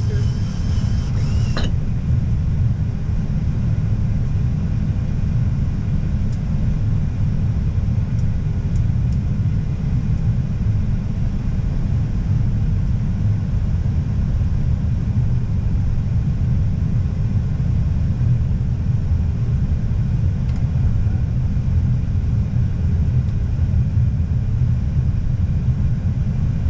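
Steady low rumble of airflow and engine noise heard inside an Airbus A320 cockpit.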